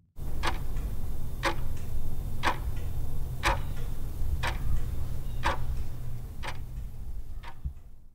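Clock-like ticking, one sharp tick a second, eight in all, over a steady low drone. It starts suddenly and cuts off abruptly at the end.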